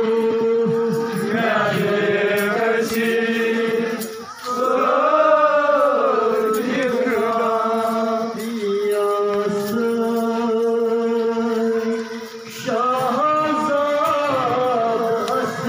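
Men's voices chanting a mourning lament (nauha) together in long held notes, with two short breaks, about four and twelve seconds in.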